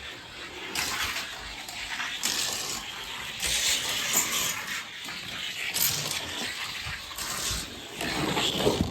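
Die-cast toy car's plastic wheels rolling down a gravity race track: an uneven rattling whir that swells and fades several times.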